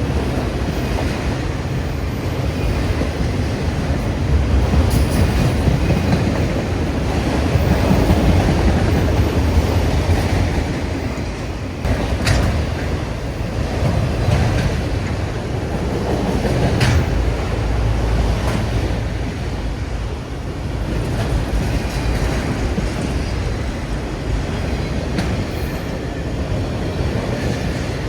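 Train cars rolling past with a steady rumble of wheels on rail and a clickety-clack over the joints, with two sharp metallic clanks about twelve and seventeen seconds in.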